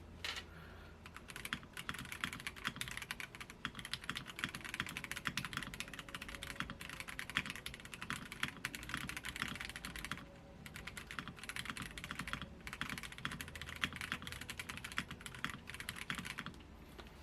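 Fast typing on a Royal Kludge RK-H81 mechanical keyboard with brown switches: a dense, rapid run of keystrokes for about fifteen seconds, broken by two short pauses, stopping shortly before the end.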